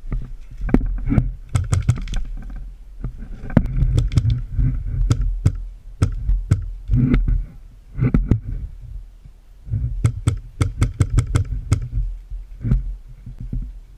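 Airsoft guns firing strings of rapid sharp snaps, several bursts with short gaps between them, over a heavy low rumble.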